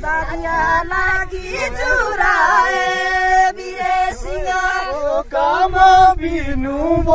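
Singing, with voices holding long, wavering notes over a steady lower line.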